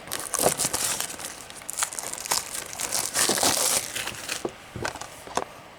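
Plastic shrink-wrap being torn and crumpled off a Blu-ray case: a run of crinkling with small clicks, loudest about three seconds in, dying down near the end.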